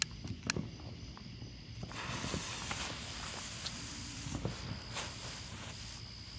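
A small ground firework burning with a hiss of sparks, starting about two seconds in after a couple of sharp clicks.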